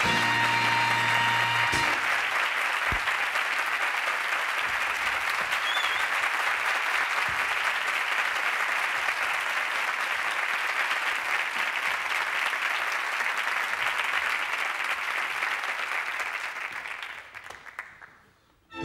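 Studio audience applauding, with music stopping about two seconds in; the applause fades away near the end.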